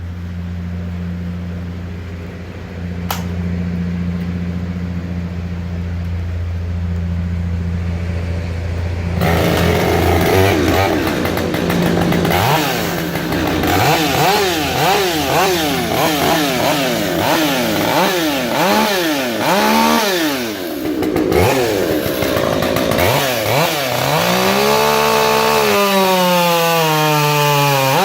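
Rebuilt Husqvarna 562 two-stroke chainsaw with a West Coast build, idling steadily for about nine seconds. It is then revved up and down over and over as the throttle is blipped, with longer held revs near the end.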